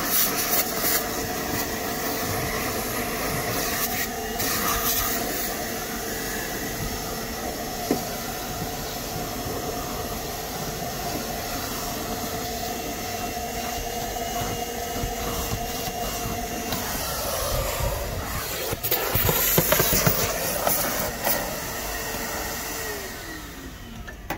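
Canister vacuum cleaner running steadily, its hose nozzle sucking up pet hair from the carpet under a car's rear seat. It gets louder and busier for a few seconds near the end. Then the motor's tone falls away as it is switched off and winds down.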